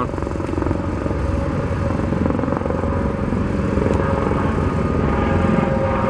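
Steady engine rumble at a busy construction site, with a droning tone that grows louder near the end.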